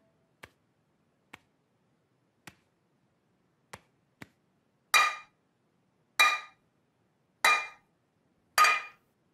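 Two metal pans knocked together: a few light taps, then four loud ringing clangs a little over a second apart.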